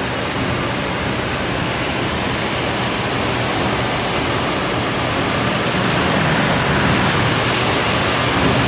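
CNC copy-shaping machine running, its milling spindle and sanding drums spinning as it shapes and sands a wooden workpiece: a steady rushing machine noise with a low hum, growing a little louder about six seconds in.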